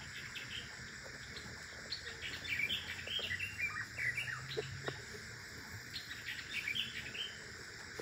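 Birds chirping in three clusters of quick, high chirps, about two, four and six seconds in, over a steady high drone of insects.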